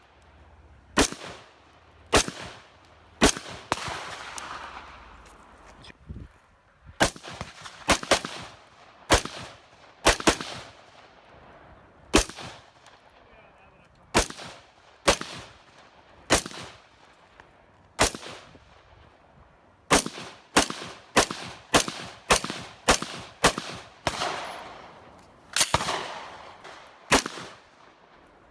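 Gunshots at a shooting range, about thirty in all, fired at an uneven pace: single shots a second or so apart, some quick doubles, and a faster string of shots near the end. Each crack has a short ring-out.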